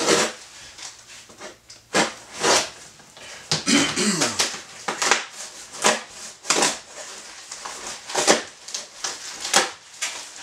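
Cardboard shipping box and its packing being pulled open and handled: a run of irregular rustles, rips and scrapes.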